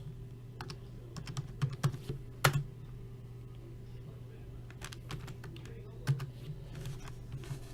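Computer keyboard typing: scattered key clicks in small clusters, the sharpest about two and a half seconds in, over a steady low hum.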